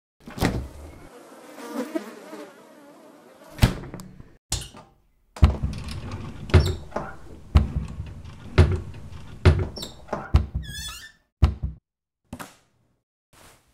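A run of dull knocks or thuds, about one a second, over a low rumble, with a short wavering insect-like buzz, like a fly, about two-thirds of the way through.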